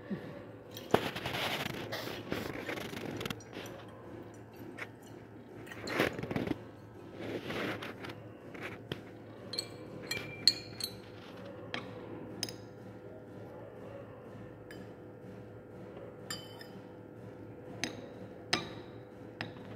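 Glassware handling: swishes as a glass conical flask of solution is swirled, then a glass rod clinks against the inside of the flask with short ringing notes. Later come a few light taps as the rod touches a white spot plate, over a faint steady hum.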